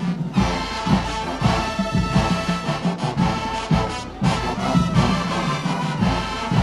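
Marching band playing: brass holding sustained chords over regular drum hits.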